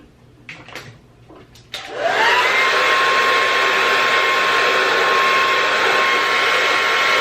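Handheld hair dryer switched on after a few handling clicks: its motor spins up with a quick rising whine, then runs at a steady, loud whir with a clear whining tone.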